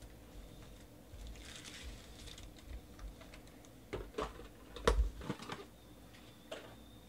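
Foil trading-card packs being handled and set down on a tabletop. A soft crinkle comes about a second and a half in. A few sharp taps and knocks follow from about four seconds, the loudest just before five seconds.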